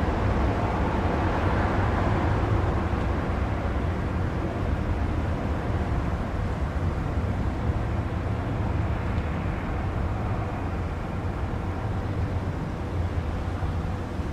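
Steady rumbling noise, strongest in the low range, easing slightly after the first few seconds.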